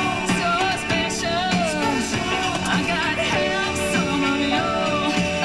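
A pop song with a singer, playing on a lorry cab's radio.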